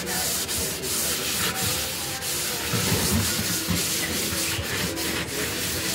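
Scouring sponge scrubbing back and forth over a soapy gas cooker top, a continuous rasping scrub made of many quick strokes.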